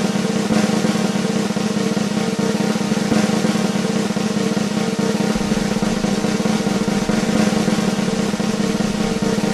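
Motorcycle engine running at a steady speed under wind noise, a dense, even rumble that does not change.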